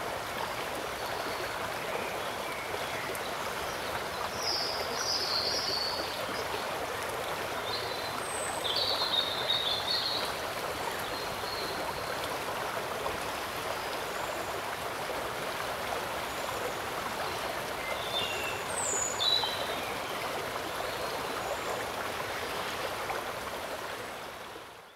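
Steady rush of flowing water, with a few short, high bird chirps about 5, 9 and 19 seconds in. It fades out near the end.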